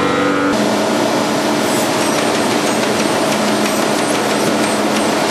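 Steady mechanical running noise of a VC999 automatic belt vacuum chamber packaging line and its plastic modular-belt outfeed conveyor, with a steady hum and fine ticking. It cuts in abruptly about half a second in.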